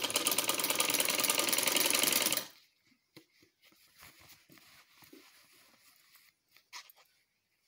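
Sewing machine running a seam at a fast, even stitch rhythm, stopping abruptly about two and a half seconds in. Then faint fabric handling and a single click near the end.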